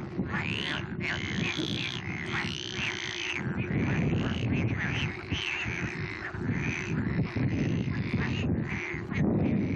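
Frogs calling from a pond in a chorus of many short, overlapping croaks, repeating throughout, over a steady low rumble.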